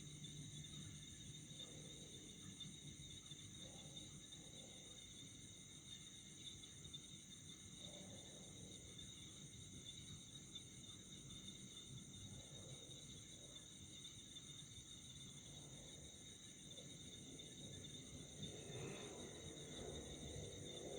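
Faint, steady chorus of night crickets, a continuous high-pitched trilling, with a few fainter, lower sounds every few seconds.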